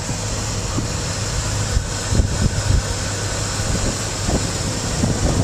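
Ford F-250 pickup engine idling steadily, with a few irregular low thumps over it.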